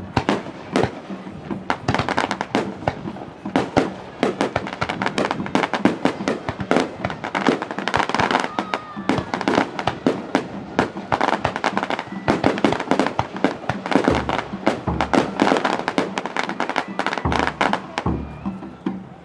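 Rapid-fire salvo of aerial fireworks shells, dense sharp bangs following one another in quick succession with no pause.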